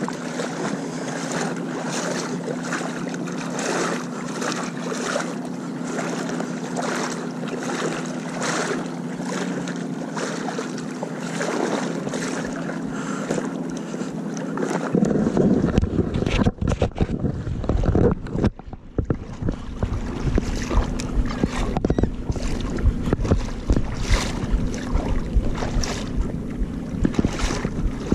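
Boat motor running at a steady pitch under heavy wind noise on the microphone; the wind buffeting grows stronger about halfway through.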